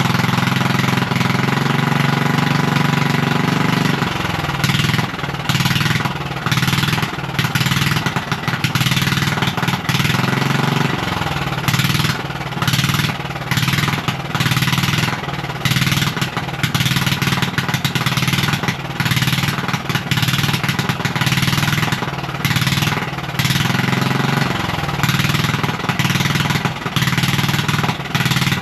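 Straight-piped ride-on lawn mower engine running loud. It holds steady for about four seconds, then its pitch rises and falls several times as it is revved.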